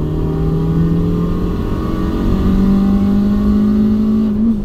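Turbocharged 1.3-litre Campro engine of a Proton Saga FLX pulling hard under acceleration, heard from inside the cabin. Its note climbs steadily as the revs rise through the gear, with a brief wobble near the end.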